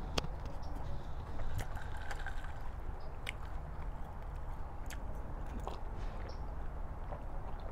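Chewing, then sips from a glass of iced cola, with a few sharp light clicks, over a steady low background rumble.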